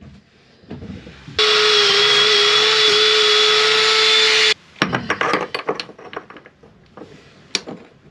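Cordless drill spinning a wire brush against a metal skin fitting, running at a steady speed for about three seconds, starting and stopping abruptly. Scattered clicks and knocks of hand tools follow.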